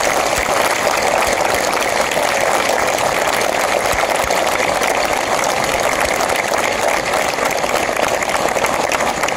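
Crowd applauding steadily, a long round of clapping that holds at one level throughout.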